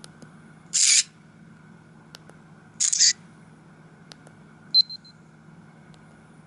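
Camera shutter sound effect from a Samsung SGH-E250i phone's speaker, played twice about two seconds apart, each a short click-and-hiss. A brief high beep follows near five seconds, with faint key clicks between.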